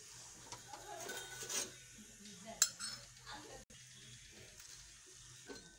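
Steel slotted spoon clinking and scraping against a steel pot as cooked rice is stirred and turned, with one sharper clink about two and a half seconds in.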